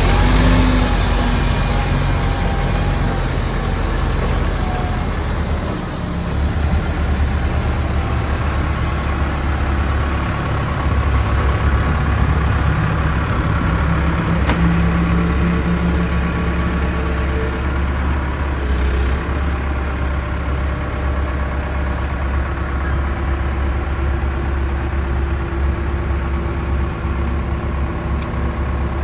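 John Deere 310SG backhoe loader's diesel engine running steadily, a little louder in the first few seconds.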